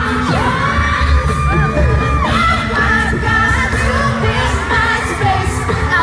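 A cappella pop group singing live: a lead voice holds a long sung note over the other voices, with beatboxed bass and drum beats underneath.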